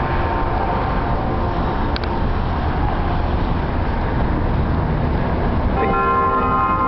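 Church bells chiming over steady street traffic: a bell tone fades out in the first second, and a new bell stroke rings out near the end.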